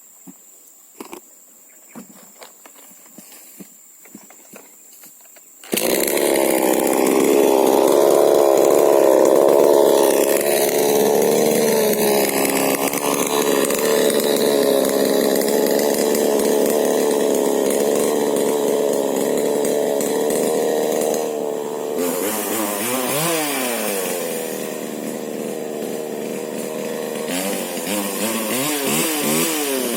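Husqvarna 125 two-stroke chainsaw with a modified exhaust, cutting in abruptly about six seconds in after a few faint knocks and running steadily at high revs. In the last third it is revved up and down repeatedly.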